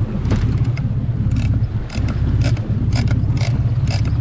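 Fishing boat's engine running steadily under way, a loud low rumble, with short sharp clicks or rasps repeating about twice a second over it.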